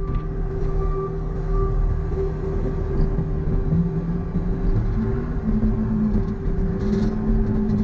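John Deere 329E compact track loader's diesel engine running steadily, with a constant whine over it. From about four seconds in, a lower tone shifts up and down in pitch as the machine works.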